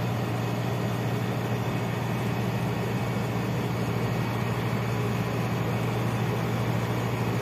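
A large engine running steadily with a constant low hum.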